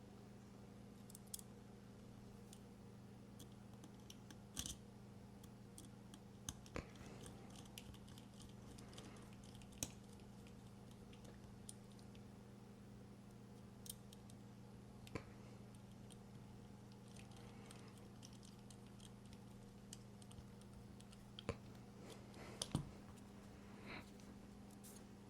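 Small scattered clicks and taps from the metal and plastic parts of a flipper knife being handled during reassembly, spaced a few seconds apart, with a louder pair near the end. A faint steady hum runs underneath.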